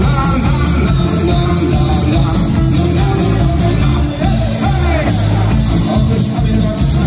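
Live rock band playing loudly through a stage PA: drum kit, electric bass and amplified acoustic guitar.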